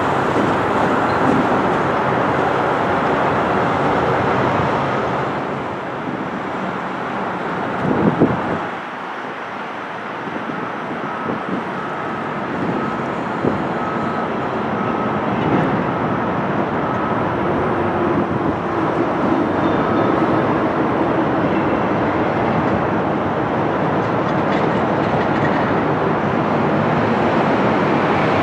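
Knoxville Locomotive Works diesel switcher locomotive running as it moves slowly through a rail yard, a steady mechanical rumble. A faint, evenly repeated high tone sounds through the middle stretch.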